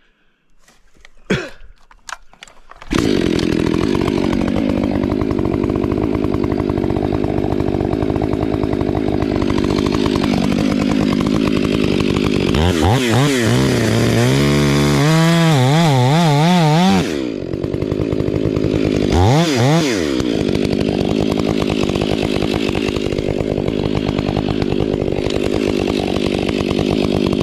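Chainsaw cutting into a balsam fir trunk during the back cut of a felling, running steadily under load. It starts about three seconds in after a few sharp clicks. Around the middle its pitch warbles up and down for several seconds as the engine speed varies.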